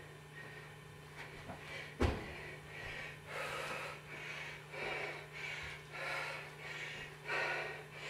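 A woman breathing hard and fast while doing burpees, about two panting breaths a second. About two seconds in, a thud of her body landing on the carpeted floor is the loudest sound.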